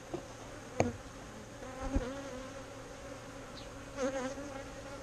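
Agitated honeybees buzzing in flight around an opened hive, with a louder, wavering buzz as a bee passes close about four seconds in. A sharp click about a second in and a knock about two seconds in.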